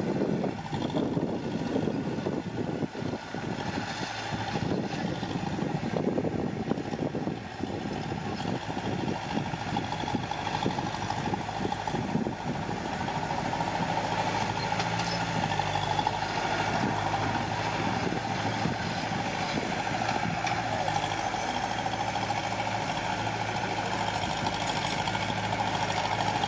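Heavy earthmoving machine's engine running: uneven and rough for the first half, then settling into a steady hum from about halfway through.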